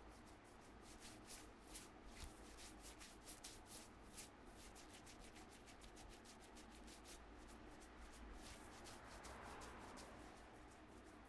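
Hands rubbing and working over a person's head and hair in a head massage: a faint, irregular run of quick scratchy strokes, several a second, with a longer rub near the end.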